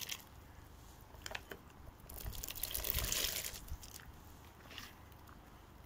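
Diced raw potatoes tipped by hand from a plastic bowl into a cast-iron pot of boiling broth: a few single plops, then about two seconds in a longer run of splashing and rustling lasting over a second as the bulk slides in.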